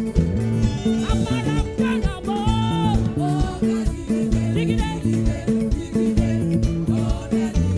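Live gospel praise band music with a steady bass line and chords, and a lead melody with vibrato over it.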